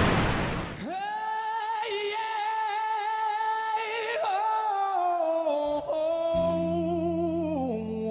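Music: a single voice holds one long, slightly wavering note that steps down in pitch near the end, over a steady low drone that comes in about six seconds in. A rushing hiss fades out in the first second.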